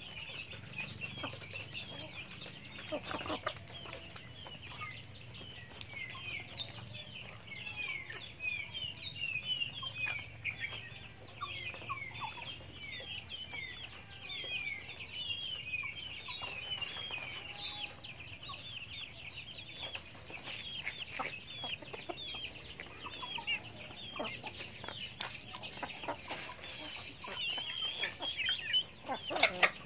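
A flock of chickens calling continuously: many quick, high, downward-sliding peeping chirps over fainter low clucks. A few short sharp taps come through, the loudest near the end.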